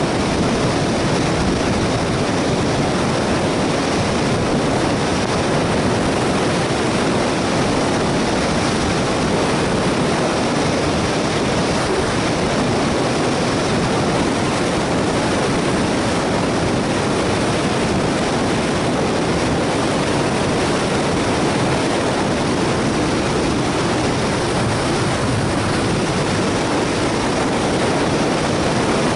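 Steady, loud rush of wind over the microphone of a camera worn by a speedflying pilot in fast flight.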